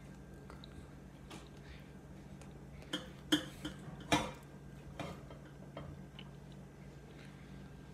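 Glass baking dish handled in an oven mitt, clinking and knocking: a short cluster of sharp clicks about three to five seconds in, two of them louder, over a steady low hum.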